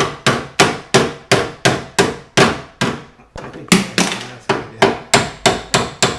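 A small child hammering nails with quick, even hammer blows, about three a second. There is a short break a little after halfway, then the blows start again.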